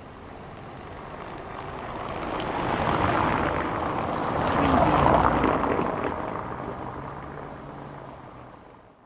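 A car passing by on a concrete road: tyre and engine noise fades in, swells to its loudest about five seconds in, then fades away, with the crackle of the road surface under the tyres.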